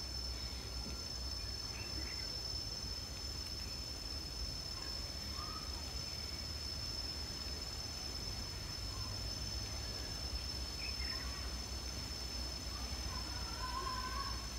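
Garden ambience: a steady, high-pitched drone of insects, likely crickets, with a few faint bird chirps and a low rumble underneath.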